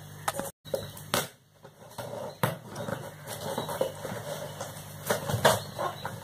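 Cardboard parcel box sealed with packing tape being handled and opened: irregular scratches, taps and knocks as the tape is picked at and cut.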